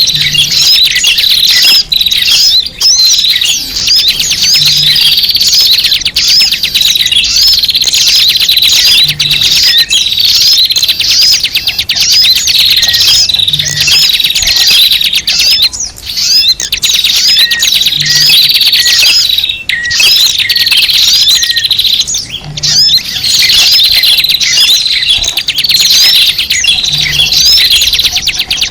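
Many small birds chirping and twittering at once, a dense, continuous flock chatter of quick up-and-down notes, played as a bird-lure (pikat) call to draw small birds in.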